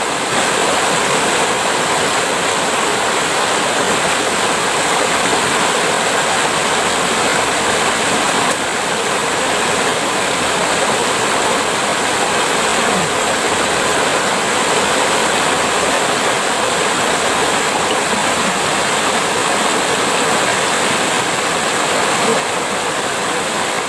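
Steady rushing of running water, like a stream.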